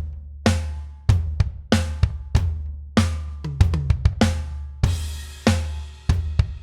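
Sampled acoustic drum kit from a Pearl Mimic Pro drum module, played from an electronic drum kit: a groove of bass drum, snare and tom hits with cymbals, two to three strikes a second, each leaving a deep ringing low tone.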